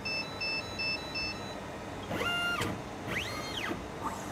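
Four short electronic beeps, then the motor of a laboratory robot's moving arm whining twice, each whine rising and then falling in pitch.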